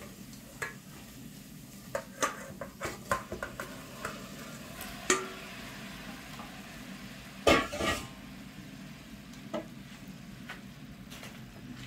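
Shrimp tipped from a metal bowl into a stainless steel pot of frying onion and tomato paste, sizzling, while a wooden spoon stirs and scrapes the pot. Short knocks and clatters come throughout; the loudest is a ringing metal clank about seven and a half seconds in.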